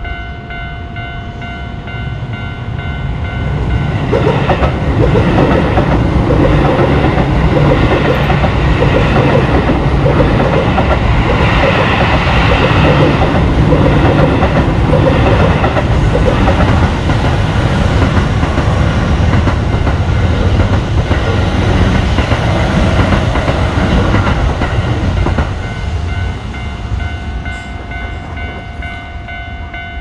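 Japanese level-crossing warning bell ringing its steady repeated kan-kan tone, then an electric commuter train passes through the crossing about four seconds in, loud for some twenty seconds before it fades and the bell comes through again near the end.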